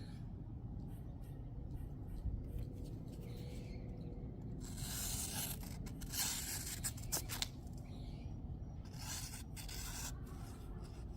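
Folding knife blade making a series of short scraping strokes over a steady low hum, as the freshly sharpened edge is worked to remove the burr or tested on a cut.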